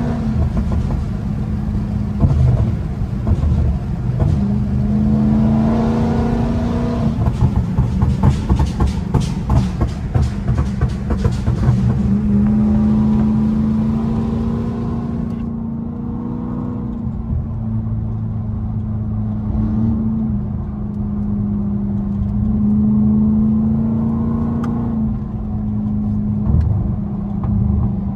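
Dodge Charger SRT's HEMI V8 running at highway speed, heard from inside the cabin, its note rising and falling as the throttle changes. A burst of rapid sharp pops or crackles comes about seven to twelve seconds in.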